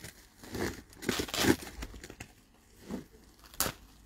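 Plastic wrapping, sack and cardboard rustling and crinkling as packaged blankets are pulled out of a bag. The rustling is loudest from about half a second to a second and a half in, with a sharp crackle near the end.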